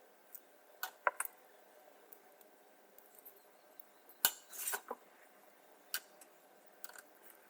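Scattered light clicks and clinks of small metal tools and parts being handled. One louder knock comes about four seconds in, followed by a short scrape.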